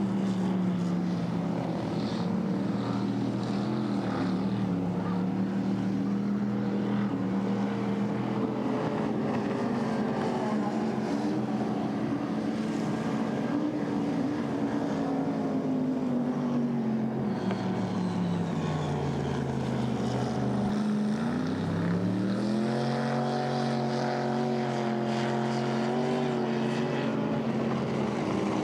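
Racing boat engine running steadily, then its pitch sags over several seconds about two-thirds of the way in before climbing quickly and holding higher near the end.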